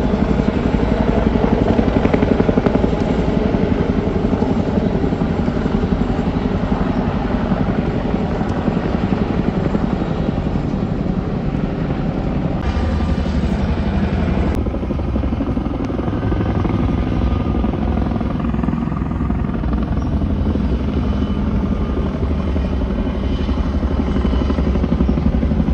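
Helicopter formation of a CH-47 Chinook tandem-rotor helicopter and two AH-64 Apache attack helicopters flying past overhead, their rotors beating steadily and loudly.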